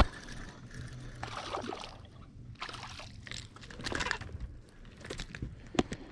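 A small fish splashing and thrashing at the water's surface beside the boat as it is reeled in, in several short bursts.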